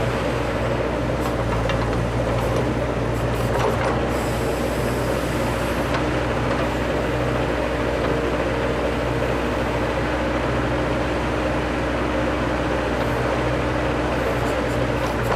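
Bobcat 763 skid steer's diesel engine running steadily while its backhoe attachment digs a planting hole.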